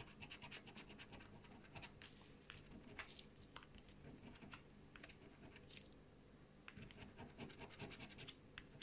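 Scratch-off lottery ticket being scratched: a rapid run of short, faint scrapes across the card's coating, with a brief pause a little after the middle.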